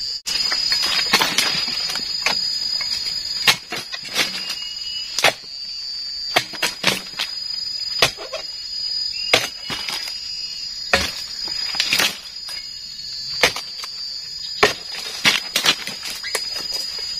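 Sharp dodos, a chisel blade on a long pole, chopping again and again into the bases of oil palm fronds: a string of sharp cracks and knocks about a second apart, unevenly spaced.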